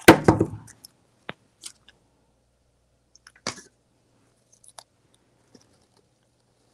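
Wire cutters snipping through a wired artificial flower stem with a crunchy snap right at the start, then a few faint clicks and a short rustle as the stem is handled and pushed into a deco-mesh wreath.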